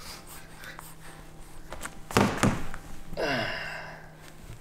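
Three-month-old baby vocalising: breathy, excited noises and, about three seconds in, one short coo that falls in pitch. Just before the coo come two loud thumps close together.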